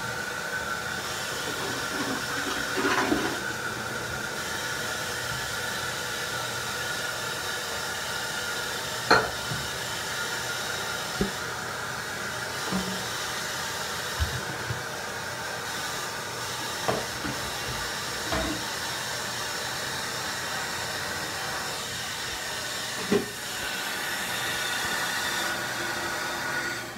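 Steady rushing hiss throughout, with a handful of short knocks and clicks as bathroom items are handled, the loudest about nine seconds in and again near the end.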